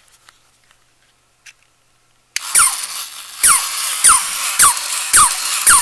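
Vintage battery-operated barking and walking poodle toy starting up about two seconds in: its small electric motor whirs while it gives high, squeaky yips that fall in pitch, about two a second, each with a soft knock.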